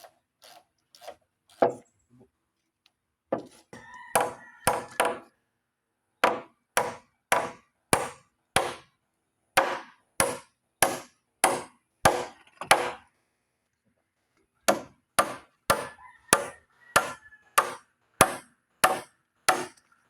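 Hand tool striking wood in steady runs of sharp blows, about two a second, broken by short pauses; typical of hammering on timber in carpentry work. A few faint taps come before the blows build up, about three seconds in.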